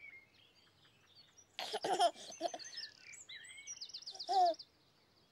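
Birdsong of high chirps and trills, with a baby giggling about a second and a half in and giving a short coo about four seconds in.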